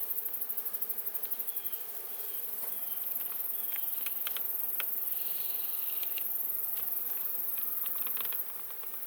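Honeybees buzzing in an open hive box as a steady hum, with a few light clicks midway and near the end.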